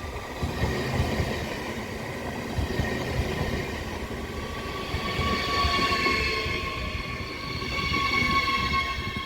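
Train passing on the track, its wheels rumbling and knocking over the rails. A high whine in several steady tones grows louder from about halfway through.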